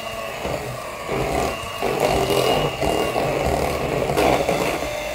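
Two-speed electric hand mixer running, its beaters whisking thick, gelled pastry cream in a stainless steel bowl to make it smooth again. It is switched off right at the end.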